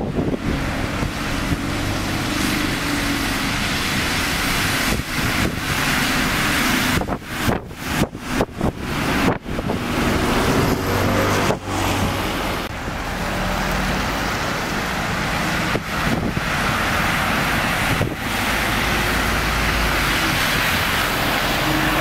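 Road traffic with London buses' engines running and passing by, their low engine tones swelling and fading, with some wind on the microphone. The sound cuts out briefly several times about a third of the way in.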